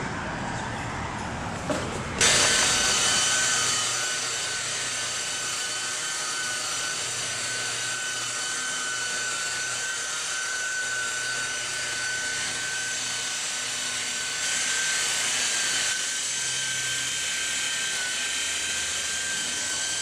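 DeWalt rotary polisher running with its pad pressed on a painted metal panel, buffing the paint. It gives a steady high whine that starts about two seconds in.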